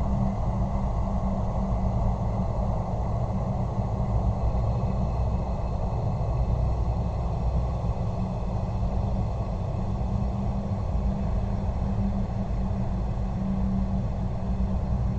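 Horror ambience drone: a steady, deep rumble with a faint hiss and thin high tones above it, unchanging throughout.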